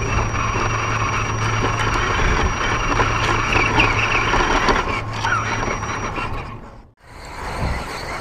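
1/10-scale Axial SCX10 rock crawler driving over rough ground, its electric motor and drivetrain running with a steady hum, heard from the camera mounted on its hood. The sound drops out abruptly about seven seconds in, then resumes.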